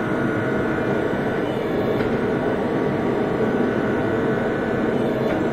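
An electric 8-ton log splitter's motor and hydraulic pump, converted to a forging press, running steadily as the dies squeeze a hot steel billet.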